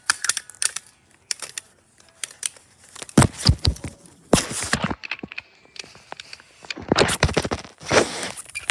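Close rustling and scraping: scattered light clicks, then four louder bursts of rustling from about three seconds in.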